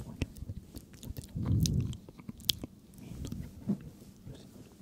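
Close-miked ASMR mouth sounds: irregular wet clicks and smacks of the lips and tongue, with a brief low, unintelligible mumble about one and a half seconds in.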